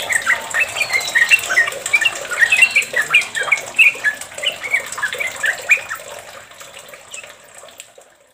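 Yellow-vented bulbul singing a long, continuous run of short, quick chattering notes, about five or six a second, over a steady hiss. The song fades out near the end.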